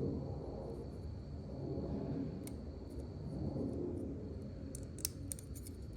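Lishi KW1 pick working the pins inside a Kwikset doorknob cylinder: soft handling rustle with a few small sharp clicks, one about midway and a quick cluster near the end, as the pins are lifted and set.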